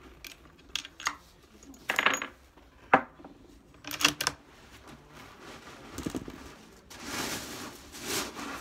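Sharp metallic clicks and clinks of cartridges being loaded into a Franchi Horizon Varmint bolt-action rifle and its bolt being worked, in a string over the first four seconds or so. A softer rustling follows near the end.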